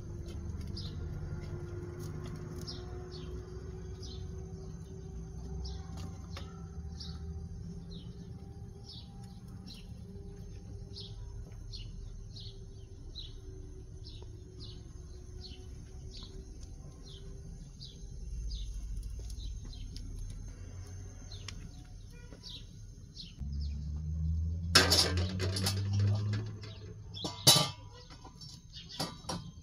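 A small bird chirping over and over, short falling chirps about twice a second, over a low steady rumble. Near the end comes a loud clatter with a couple of sharp knocks.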